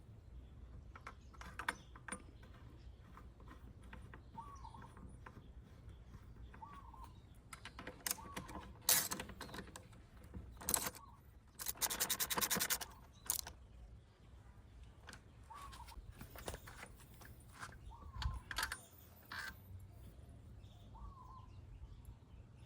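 Hand tools clicking and knocking on metal, with a ratchet wrench turning in a rapid run of even clicks for about a second and a half midway. A bird gives a short call every two or three seconds in the background.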